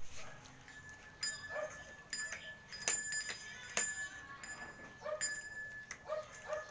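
Small bell in a Lego bell tower being struck about once a second, unevenly: each sharp click is followed by a high ringing tone that lingers. A few short squeaks fall between the strikes.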